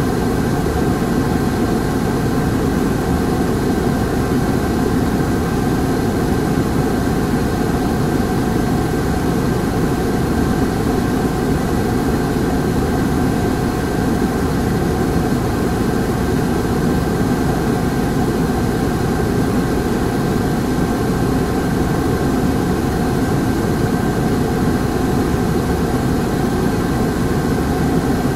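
Hankyu city bus running, heard from on board: a steady engine and road rumble with a faint, steady high whine, holding an even level throughout.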